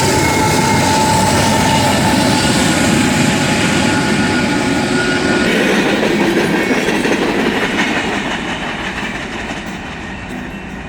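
Union Pacific manifest freight train's cars rolling past, steel wheels clattering on the rails, with a thin high squeal in the first couple of seconds. The sound fades over the last few seconds as the train moves away.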